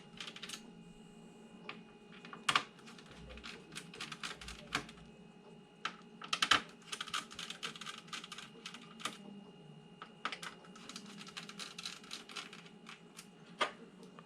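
Bursts of quick, light clicking and tapping, with a few sharper single clicks, as the CPU heatsink inside an all-in-one computer is worked loose.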